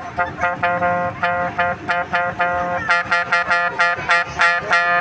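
Bus telolet horn, a Basuri multi-tone air horn, playing a quick tune of short pitched notes. The notes come about three a second at first and quicken to about five a second near the end.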